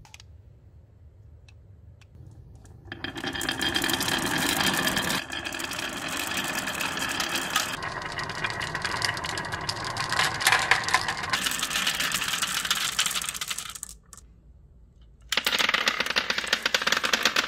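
Many glass marbles rolling and clicking down a wavy-grooved wooden track and rattling into a plastic toy dump truck's bed, starting about three seconds in and stopping near fourteen seconds. After a short lull, a louder clatter of marbles spilling out of the tipped truck bed.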